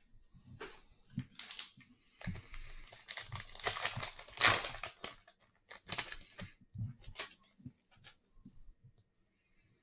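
A foil trading-card pack being torn open and crinkled: a few light taps, then a long crinkling stretch that is loudest about four and a half seconds in, then a few short rustles.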